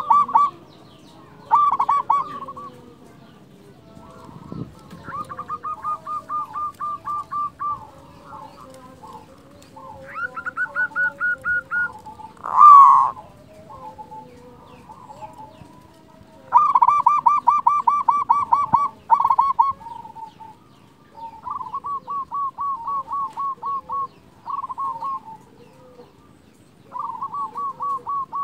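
Zebra doves (perkutut) singing: repeated bouts of quick staccato coo notes, several a second, each bout lasting one to three seconds with short pauses between, some bouts higher-pitched than others. One louder call with rising pitch breaks in about twelve seconds in.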